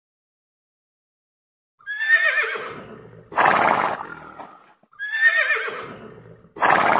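A horse whinnying twice, about three seconds apart, the first starting about two seconds in. Each whinny is a high, wavering call that runs into a louder, rougher, noisy end.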